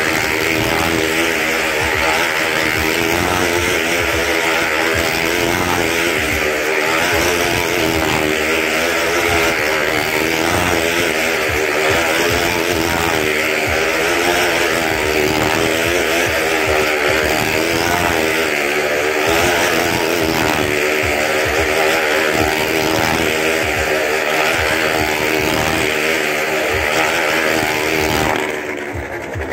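Motorcycle engines revving hard as they circle the wooden wall of a well-of-death drum. Their pitch rises and falls continuously. The sound dips briefly near the end.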